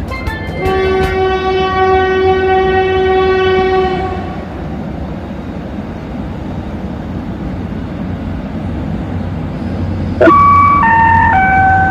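A train horn sounds one long steady blast, followed by a low steady rumble of the running train. Near the end, the three-note descending chime that comes before a railway station announcement plays.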